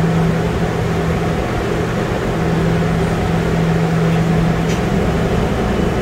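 Refrigeration vacuum pump running steadily with a low hum, and a single click near the end.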